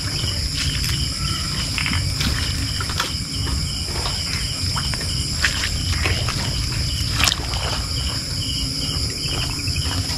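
Insect chorus of crickets, a steady high-pitched trilling drone with a pulsing call repeating underneath, joined by scattered light ticks and rustles.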